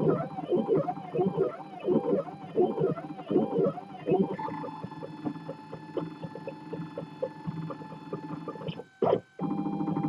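3D printer's stepper motors whining as the print head moves, each move a quick rise and fall in pitch, about three a second. After about four seconds the tones turn steadier with rapid short ticks, and they cut out briefly near the end.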